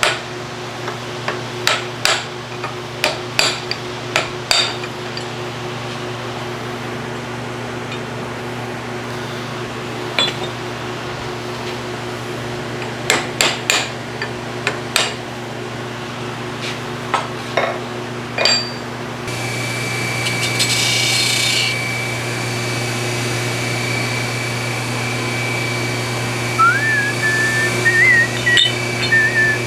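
Scattered sharp metal knocks and clinks of steel parts and tools being handled on a bench, over a steady shop machinery hum. About twenty seconds in, a machine starts up with a steady whine and a high tone, and near the end a wavering whistle comes in.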